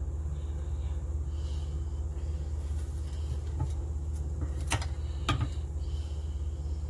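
A steady low hum, with two short, sharp clicks about half a second apart near the middle as flowers are handled on the board.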